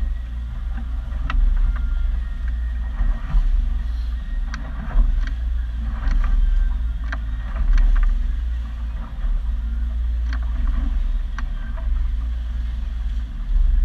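Small center-console boat on open water: a steady low rumble of its engine and wind, with scattered short sharp knocks.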